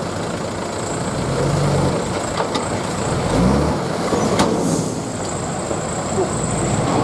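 Diesel dump truck engine running steadily with its tipper bed raised; the engine note rises briefly a little past three seconds in, and a sharp click sounds a second later.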